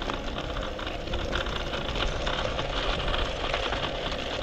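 Brompton folding bike rolling along a gravel path: steady tyre crunch with many small rattles and clicks from the bike, over a low wind rumble on the microphone.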